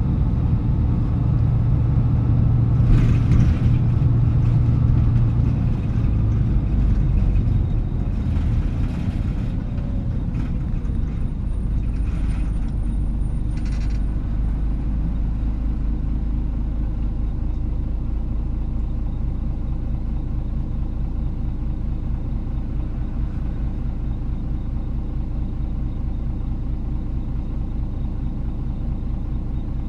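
KK-MJ26HF diesel bus engine running, its strong low hum easing off over the first several seconds and then settling into a steady, even note. A few short hisses, typical of the air brakes, come in between about three and fourteen seconds in.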